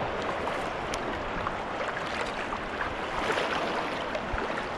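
Sea water rushing and splashing around a sea kayak as it is paddled, a steady wash with small scattered drips and splashes and a brief sharp click about a second in.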